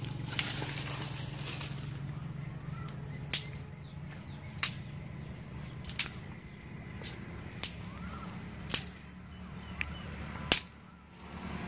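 A steady low engine-like hum, with sharp cracks or snaps about every second and a half and a few faint bird chirps.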